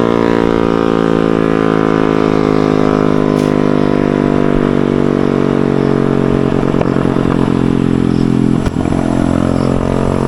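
Honda CB Shine's 125 cc single-cylinder engine through an aftermarket SC Project full-system exhaust, running loud at steady high revs while being ridden.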